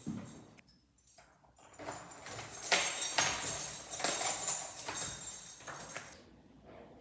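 A bunch of keys on a key ring jingling while a key is worked into a door lock and turned: a dense metallic jangle with small clicks that stops suddenly about a second before the end.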